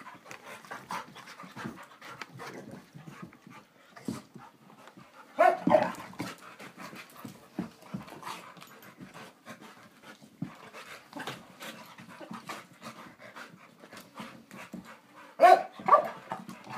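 Puppies panting while they play, with a steady patter of scuffling clicks from paws and bodies. Twice, about six seconds in and again near the end, comes a short, louder dog vocalization.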